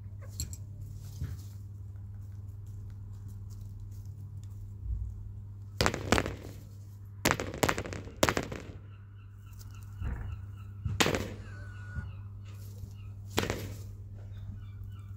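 Bantam chickens pecking close to the microphone: a run of sharp, loud taps and knocks, several in quick succession about halfway through, with faint rapid high peeps between them.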